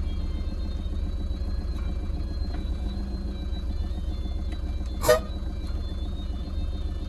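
Goods truck's engine running with a steady low rumble as the truck reverses. About five seconds in, one short, loud blast stands out.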